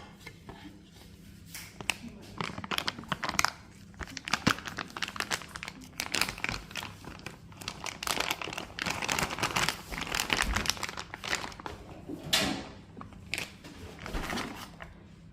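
Packaging crinkling as it is handled, in irregular bursts with sharp clicks, busiest about halfway through.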